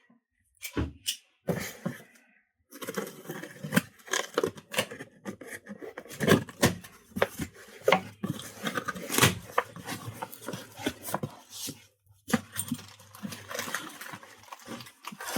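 Unpacking a cardboard box by hand: rustling packaging with many sharp knocks and clatters as the contents are handled, pausing briefly about twelve seconds in.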